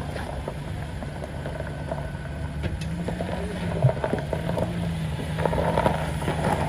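Ford Ranger pickup's engine running with a steady low hum, the pitch stepping up slightly about three seconds in.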